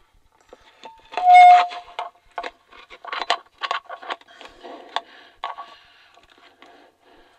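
Handling noise from a plastic Stormtrooper helmet being pulled on over a headset microphone: irregular scrapes, clicks and knocks as it is seated and adjusted. About a second in there is a brief, loud steady tone, the loudest sound here.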